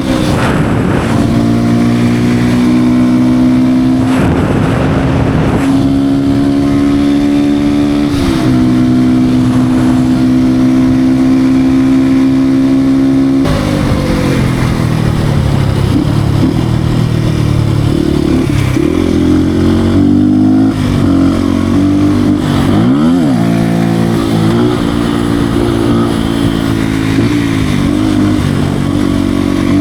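Beta RR 125 R supermoto's small single-cylinder engine under way, holding a steady pitch for about half the stretch with a short dip about a third of the way in. It then goes up and down through the revs, with several quick rise-and-fall sweeps toward the end.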